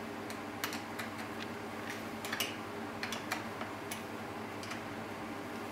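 Scattered light clicks and taps at an uneven pace, over a steady low hum.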